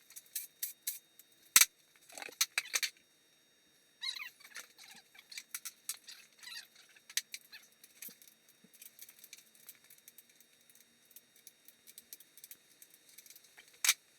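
Metal clinks and rattles of tools and parts being handled while a Honda K20 engine is taken apart: scattered sharp clicks, with a loud click about a second and a half in and another near the end.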